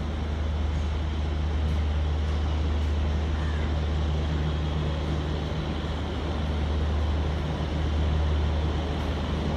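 Rajdhani Express locomotive creeping in along the platform, its engine giving a steady low drone that grows slightly louder as it nears.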